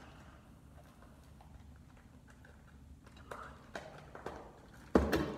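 Cardboard box and packaging being handled: a few light knocks and rustles, then one loud thump near the end.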